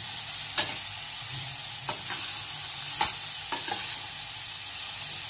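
Shredded cabbage being stirred into spiced oil in a stainless steel kadhai: a steady sizzle, with the spoon knocking and scraping against the pan a few times.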